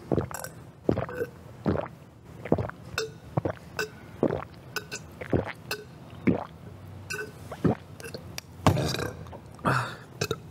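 A man gulping down water from a glass: a steady run of short swallowing sounds, more than one a second, with a couple of longer, breathier sounds near the end.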